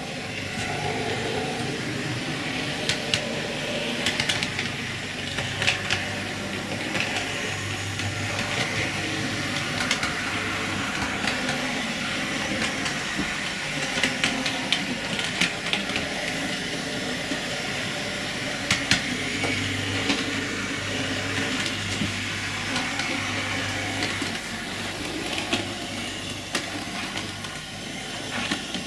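Hornby OO gauge Class 121 DMU model running along the layout track, its small electric motor whirring steadily, with scattered clicks as the wheels pass over rail joints and points.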